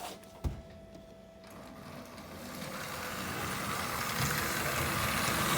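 Postwar electric toy train running on its track around the tree, motor whirring and wheels clattering, growing steadily louder as it comes nearer. A short knock about half a second in.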